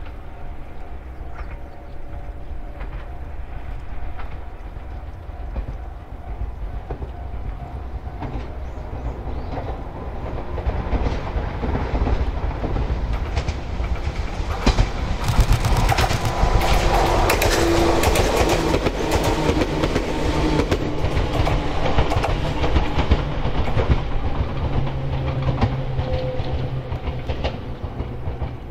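Toyama Chihō Railway electric train approaching and passing close by, wheels clattering over the rail joints. It grows louder from about a third of the way in, is loudest around the middle, and fades toward the end.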